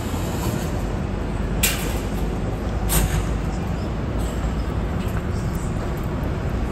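City street traffic rumbling steadily, with two short sharp clicks a little over a second apart.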